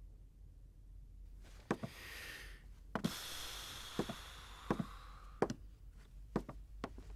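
Light knocks and thuds on a hard surface, roughly one a second and some in quick pairs, with a breathy rustling hiss between about one and five seconds in.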